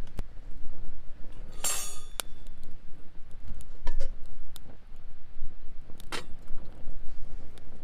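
Metal camp cookware and utensils clinking and knocking. There is a ringing clink about two seconds in, another near six seconds, and scattered lighter clicks in between.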